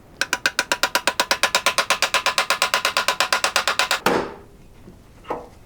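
Ball-peen hammer tapping rapidly on a rivet set, about ten light, ringing blows a second for some four seconds. It is peening over an aluminum rivet to set a toolbox latch.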